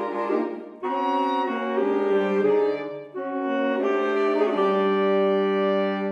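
Saxophone quartet of soprano, alto, tenor and baritone saxophones playing held chords together that change every second or so, with brief breaks just before one second and about three seconds in.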